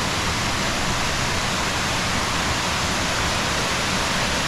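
Waterfall: a powerful, steady rush of falling water that does not let up.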